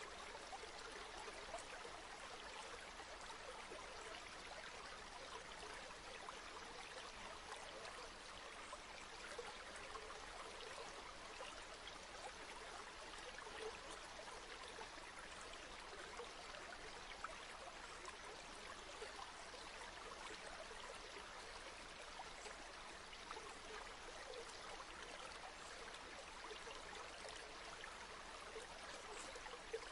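Steady rush of a flowing river or stream, water running over rocks with fine trickling and babbling detail.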